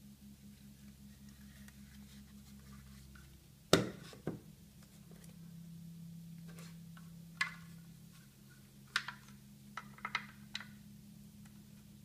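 Hard plastic parts of a Play-Doh Fun Factory toy press being handled: one sharp knock a little under four seconds in and a smaller one just after, then a run of light clicks and taps as the red shape plate is fitted into the press's slot. A faint steady low hum lies underneath.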